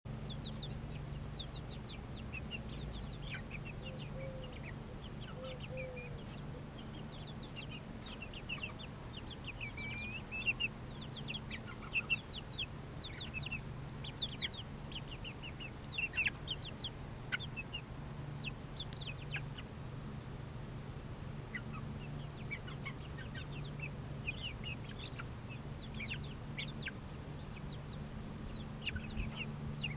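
Young Polish bantam chickens peeping and cheeping in many short, high, falling calls, busiest in the middle, over a steady low hum.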